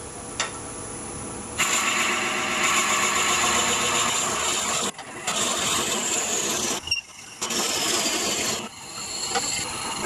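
Wood lathe turning at about 500 rpm while a 1-inch Forstner bit in a tailstock drill chuck bores into a spinning eucalyptus blank. A steady hum, then from about one and a half seconds in the loud rasp of the bit cutting, in three stretches broken by short pauses.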